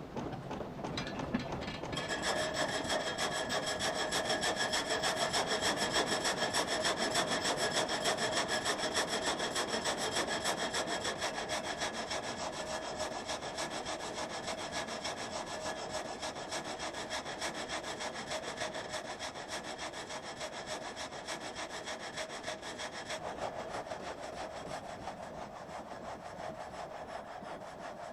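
Sawmill blade cutting through a log: a steady, fast rasping with a ringing whine over it that sets in about two seconds in and eases off near the end.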